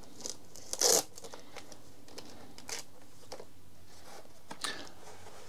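Packaging being opened by hand: a short rasp about a second in, then faint rustling and light scrapes.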